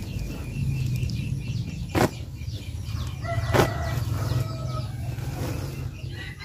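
Dried herbal leaves and stems rustling against a woven plastic mat as hands turn and sort them, with two sharp cracks about two and three and a half seconds in. A chicken calls in the background in the middle of the stretch.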